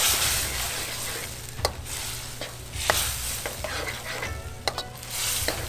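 Metal wok spatula stirring a bubbling, sizzling sweet-and-sour sauce in a steel wok over a gas burner, as a cornstarch slurry thickens it. A few sharp clinks of the spatula on the wok stand out from the steady hiss.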